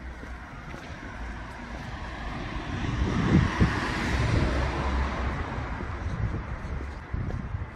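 A road vehicle driving past on the street, its tyre and engine noise swelling to a peak about three to four seconds in and then fading away.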